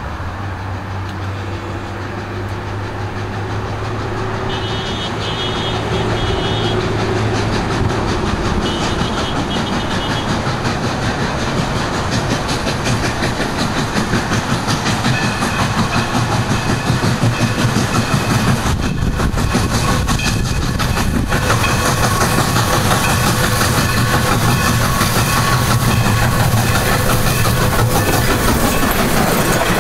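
Southern Pacific #2472, a 4-6-2 Pacific steam locomotive, approaching along a curving track, growing steadily louder as it nears.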